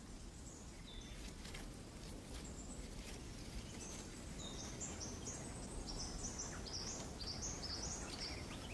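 Faint outdoor ambience: a steady low background rumble with small birds calling, a couple of single high whistles in the first half, then a quick run of short high chirps from about halfway until near the end.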